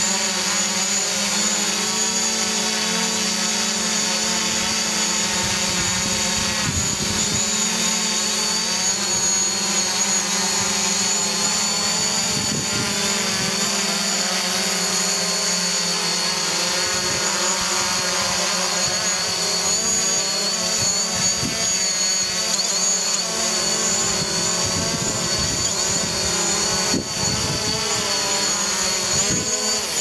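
DJI Mavic Pro quadcopter's four propellers whining steadily at close range, the pitch wavering.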